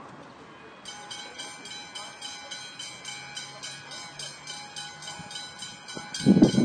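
A level crossing warning bell starts about a second in, a rapid, evenly repeated high ringing that signals an approaching train. Near the end a much louder low rumbling cuts in.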